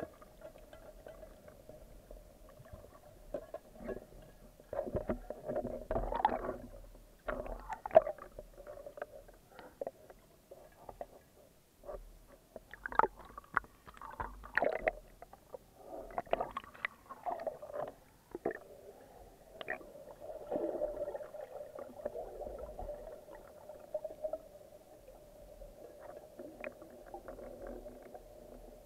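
Muffled underwater sound through a speargun-mounted camera's waterproof housing: water movement and bubbling in irregular bursts over a steady hum, with splashing where the camera breaks the surface about halfway through.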